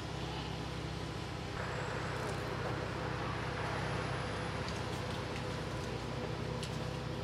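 Street traffic: a steady low engine rumble, with road noise swelling about a second and a half in and staying up.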